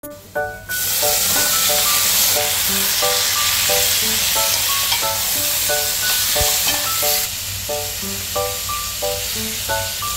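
Garlic and chicken pieces sizzling in hot oil in a metal pot, a loud steady hiss that drops noticeably about seven seconds in. Light background music of short melodic notes plays throughout.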